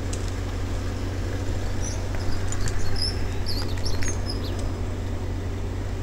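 A bird chirping a quick run of short, high notes about two to four seconds in, over the steady low drone of the crane's engine running.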